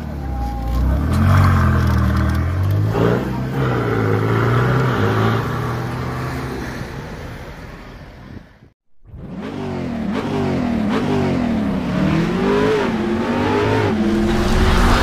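Ferrari Portofino's twin-turbo V8 accelerating away, its pitch climbing and dropping back through the gears. A brief cut to silence about nine seconds in, then an engine revving in repeated rises and falls.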